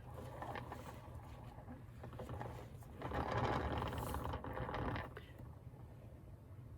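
Tiny handheld battery-powered blower buzzing, its small motor louder for about two seconds in the middle.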